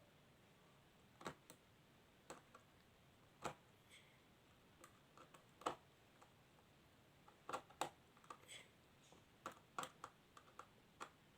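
Faint, scattered clicks and taps of plastic being handled as the battery cover of a toy air hockey table is fitted back on, at irregular intervals with a few sharper knocks.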